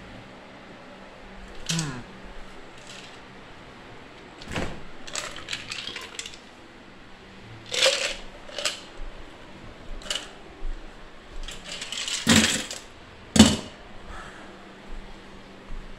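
Scattered knocks, taps and clatters of household objects being handled and moved about, about a dozen, with the loudest pair near the end, over a faint steady hum.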